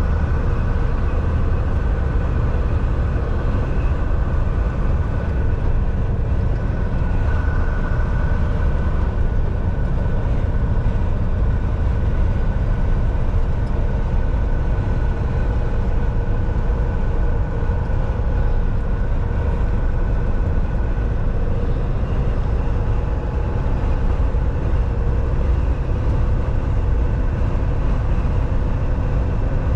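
Volvo semi-truck driving, a steady low rumble of engine and road noise with a faint steady whine over it.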